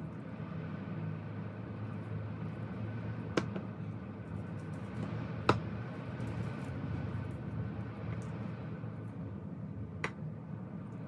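Kitchen knife tapping a wooden chopping board three times while cutting cooked chicken: sharp clicks about three and a half seconds in, five and a half seconds in (the loudest), and near the end, over a steady low hum.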